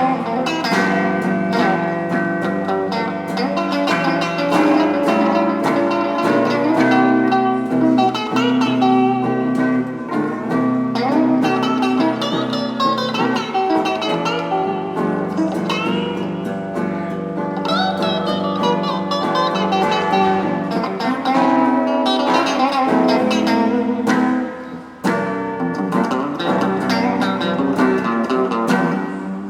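Solo guitar playing a melody of picked notes over a held low line, with some notes bent or slid in pitch, and a brief drop in loudness near the end.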